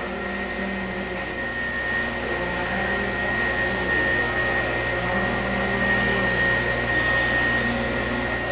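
Cylindrical grinder running, its wheel grinding a worn steel steam-locomotive piston rod under a coolant spray, with a steady high whine over a motor hum. The rod is being ground back into round and straight where years of sliding through its bushing wore flat spots in it.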